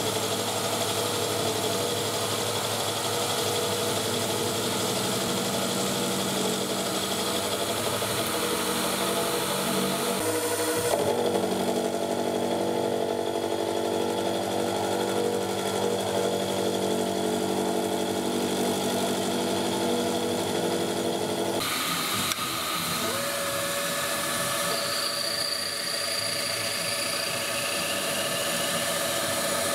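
Wabeco F1200 bench milling machine running, its spindle whining steadily as a 16 mm HSS end mill cuts a cast part. About 22 seconds in the sound changes to the mill drilling a hole in the same part with a twist drill.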